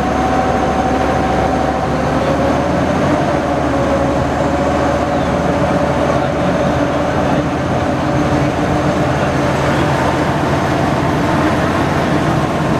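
World War II DUKW amphibious truck's engine running steadily, driving its propeller through the water. A constant drone with a held tone on top.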